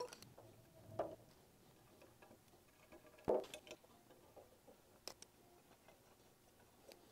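A few light clicks and taps of small hand work: small plastic cups set down on the work mat and an Allen wrench working the screws out of a resin 3D printer vat's frame. The sharpest tap comes a little over three seconds in.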